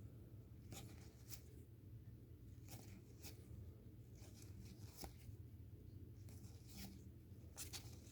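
Faint rustles and soft clicks of trading cards being handled and slid one over another, a few light strokes spread through, over a low steady hum.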